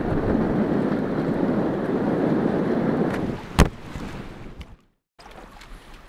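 Strong wind buffeting the microphone over choppy water, with a single sharp click about three and a half seconds in. After the click the noise drops much quieter, cuts out completely for a moment, and returns faint.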